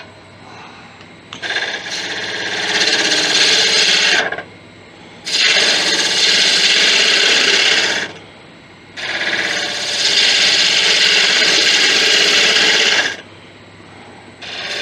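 Hand-held turning tool cutting into wood spinning on a Laguna wood lathe: three passes of a few seconds each, each a loud steady hiss, with the lathe running more quietly between them.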